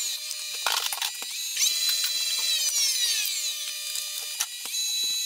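Nespresso Vertuo capsule machine brewing espresso: a high mechanical whir whose pitch slides down again and again, with scattered clicks, cutting off suddenly at the end.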